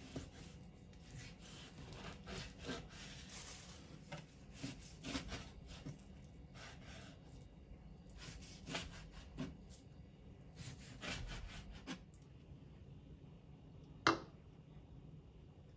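A long kitchen knife slicing through raw chicken thigh onto a cutting board, in clusters of short cutting and scraping strokes. About two seconds after the cutting stops, one sharp knock as a lacquered bowl is set down.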